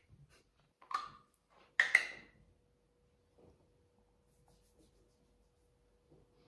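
Two short handling knocks about a second apart, then a quiet small room with a faint steady hum and soft rustling.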